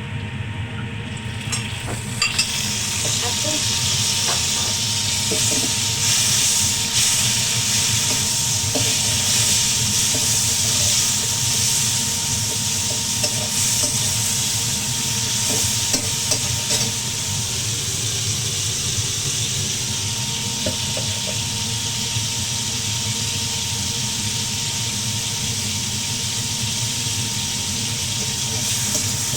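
A vegetable stir-fry sizzling in a hot pan, the sizzle starting suddenly about two seconds in, with the spatula clicking and scraping irregularly against the pan as it is stirred.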